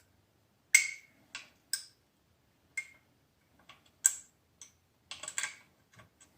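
Irregular sharp clicks and taps, about a dozen, some with a brief metallic ring, from handling the small parts and electrical contacts of a vacuum cleaner handle.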